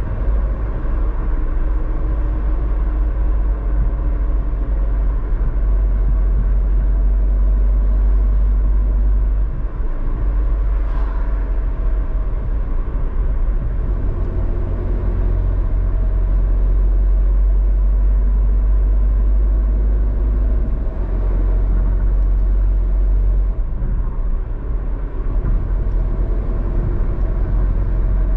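A car driving along a road: steady low road and engine rumble, with a faint engine hum that drifts a little in pitch.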